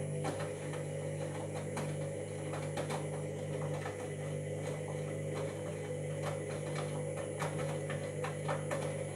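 Washing machine motor turning the drum: a steady hum with irregular clicks and ticks over it. It is a noise the owner puts down to a drum or motor problem.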